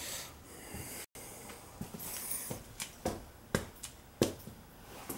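Footsteps on a concrete basement floor: a series of irregular sharp scuffs and knocks, the loudest about four seconds in.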